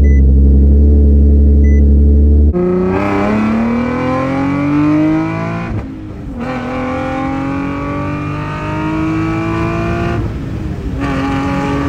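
Nissan 370Z's VQ37VHR V6 breathing through long-tube headers and a Torqen catback exhaust, heard from inside the cabin. It is held steady at high revs in neutral, then after an abrupt change it makes a full-throttle pull, the revs climbing with two upshifts, about halfway through and near the end.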